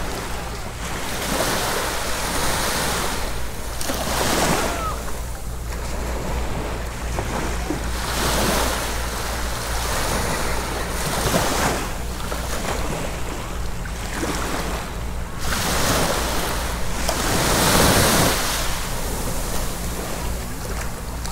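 Sea waves breaking and washing up on the beach, the surf swelling and fading every three or four seconds, with a steady low wind rumble on the microphone.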